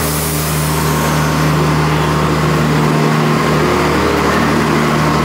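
Steady low hum of an idling vehicle engine.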